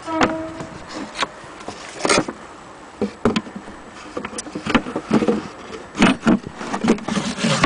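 Handling noise from an antique hand-crank sewing machine and its wooden case: irregular knocks, clicks and clatter. There is a brief metallic ring about a quarter second in.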